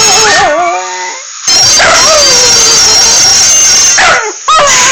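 A dog howling along with a phone's ringtone: long wavering howls that slide down in pitch, broken by two short pauses.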